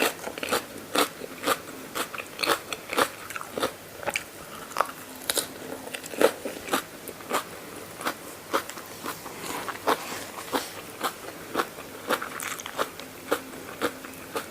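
A person chewing mouthfuls of mee yam (spicy rice-noodle salad with peanuts) close to the microphone, with loud, crisp crunches about two to three times a second.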